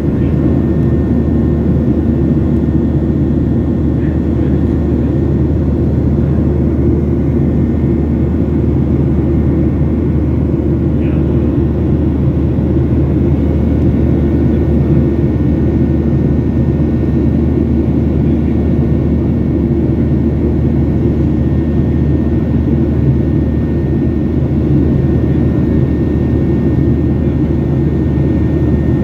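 Steady cabin noise of a Boeing 737-800 climbing after takeoff, its CFM56-7B turbofan engines running at climb power. It is a low, even rumble with a faint thin tone above it.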